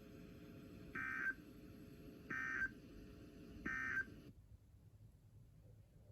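NOAA Weather Radio sending its SAME end-of-message code: three short, raspy digital data bursts about a second and a half apart, marking the end of the alert. Shortly after the third burst, the radio's faint background hiss cuts off.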